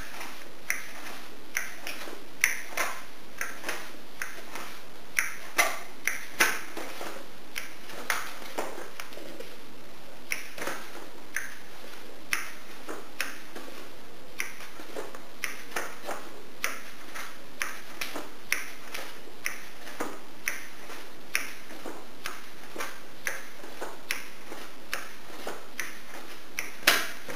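Irregular sharp clicks, about one or two a second and a few louder than the rest, over a steady hiss.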